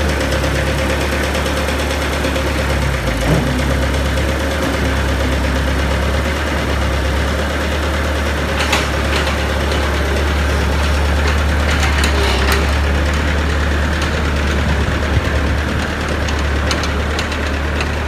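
Kubota 2.2-litre diesel engine of a Bobcat 753 skid-steer idling steadily just after a cold start, running on oil unchanged for more than eight years and clogged filters.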